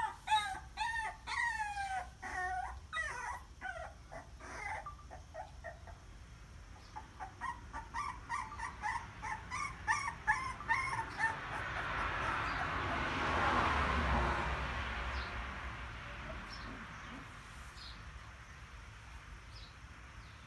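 Puppies whimpering and crying: loud, high cries that fall in pitch, several a second, at the start, then shorter, quicker calls just before the middle. After that a rushing noise swells and fades, and the crying dies down.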